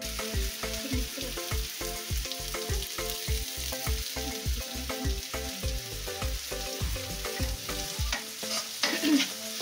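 Chicken pieces in masala sizzling and frying in a large aluminium pot, a steady hiss. Under it, background music with a steady beat that stops about eight seconds in.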